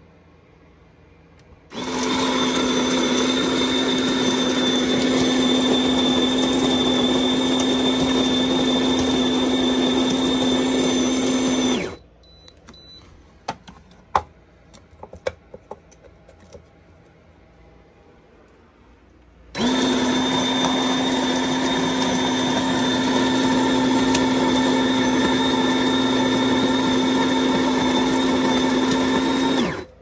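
SHARDOR electric conical burr coffee grinder grinding coffee beans on its 10-second timer: a steady motor hum with grinding noise for about ten seconds, then a pause with a few clicks and knocks, then a second ten-second run that stops just before the end.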